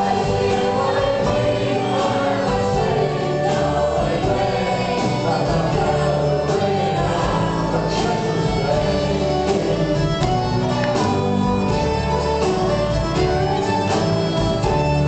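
A live folk-rock band playing at full volume, with fiddle, button accordion, banjo, electric bass, drums and keyboard, and sung vocals over a steady beat.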